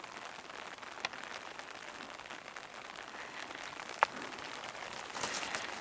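Steady light rain falling, an even patter with a couple of sharper single drop ticks, one about a second in and one about four seconds in.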